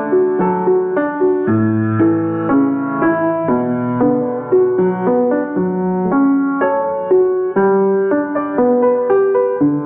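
Piano music: a flowing, gentle melody of evenly paced notes over a lower accompaniment.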